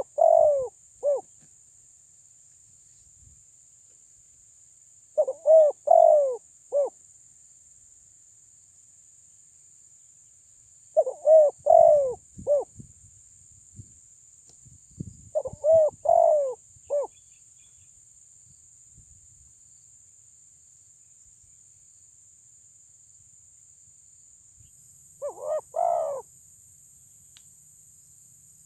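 Spotted dove cooing, a decoy bird calling loudly to provoke rival doves: five short phrases of three or four notes each, about every five or six seconds, with a longer pause before the last phrase.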